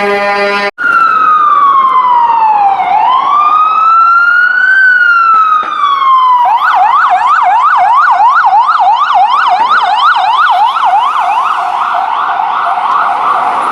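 Emergency vehicle's electronic siren, loud and close: a slow wail falling and rising in pitch, switching about halfway through to a fast yelp of about three or four sweeps a second. A short vehicle horn blast sounds at the very start.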